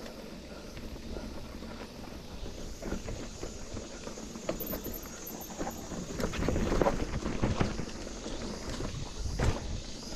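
Mountain bike rolling down a dirt trail: tyres running over loose dirt and the bike knocking and rattling over bumps. The knocking is busiest about six to eight seconds in, with one sharp knock near the end.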